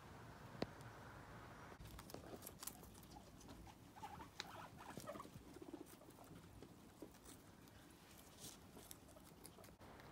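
Faint rustling and scattered small clicks of guinea pigs moving about and nibbling in a hay-strewn pen.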